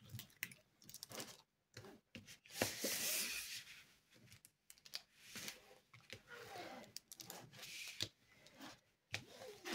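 A plastic scraper is pressed and slid over a diamond-painting canvas and its plastic cover film, with soft irregular swishing scrapes, crinkles and small clicks. The canvas is being flattened where it was creased and its glue had bunched up.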